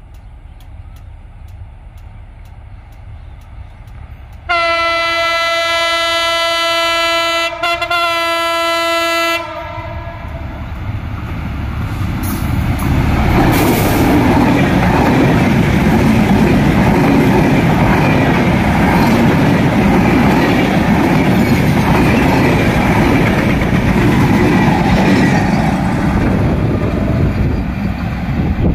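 Diesel locomotive's air horn sounding one long blast, briefly broken, about five seconds long, as the train approaches. Then the locomotive and its passenger coaches run past close by, a loud rumble with wheels clattering over the rail joints.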